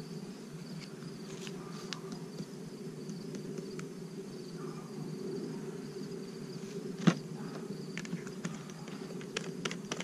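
Flying insects buzzing steadily. A single sharp knock comes about seven seconds in, and a few light clicks follow near the end as a glass spice jar is handled and set down.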